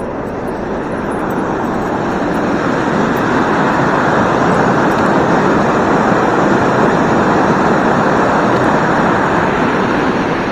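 River water pouring over a weir: a loud, steady rush of churning white water that swells a little louder over the first few seconds.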